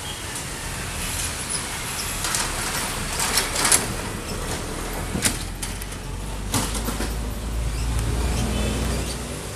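CC 206 diesel-electric locomotive hauling a passenger train on the approach, its low engine rumble building steadily and loudest near the end. A few sharp clicks or knocks come in the first seven seconds.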